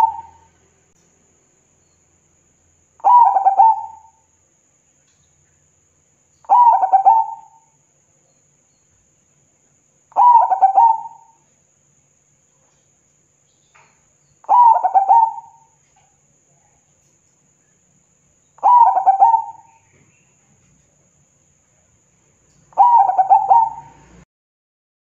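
Zebra dove (perkutut) singing its cooing song: six calls about every four seconds, each a quick stuttering run of coos lasting about a second.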